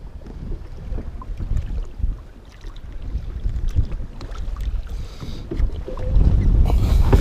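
Wind buffeting the microphone over choppy water lapping at the side of a small boat: an uneven low rumble that grows louder about six seconds in, with a short rush of hiss near the end.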